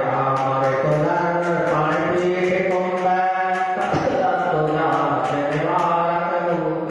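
A voice chanting a Jain mantra recitation through a microphone, in long held notes, over a quick regular tapping of about three strikes a second.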